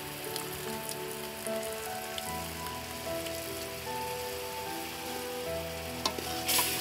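Syrup boiling in a metal pot, with a fine, rain-like crackle of bursting bubbles that grows louder near the end. Background music with long held notes plays underneath.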